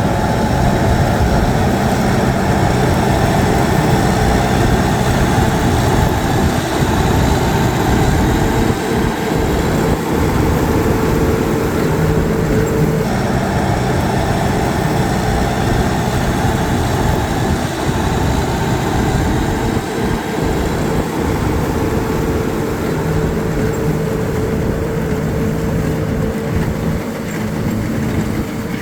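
New Holland TD110D tractor's diesel engine running steadily while baling hay, a constant engine note with a steady drone over it.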